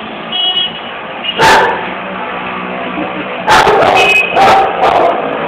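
A dog barking: one bark about a second and a half in, then several barks in quick succession near the end.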